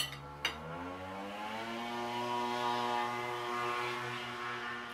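A couple of knife-and-fork clinks on a plate, then a motor-like hum that rises in pitch over about a second and a half and then runs steadily.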